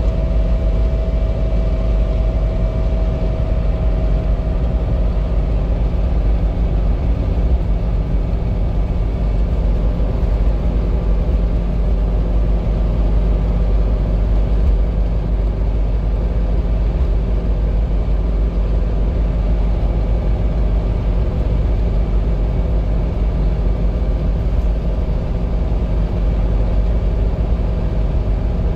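Inside the cabin of a Vortec-swapped Land Rover Discovery II SE cruising at steady highway speed: a steady engine drone mixed with road and tyre noise.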